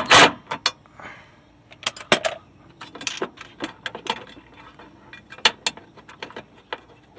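Irregular metallic clicks and clinks of hand tools and bolts being worked as a bracket and body parts are fitted to a car's front end.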